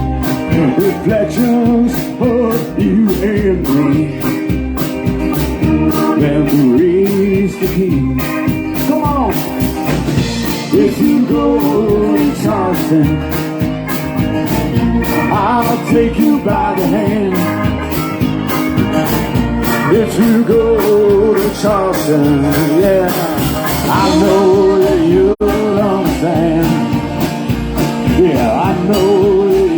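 Live band playing a song: a steady drum beat under guitar.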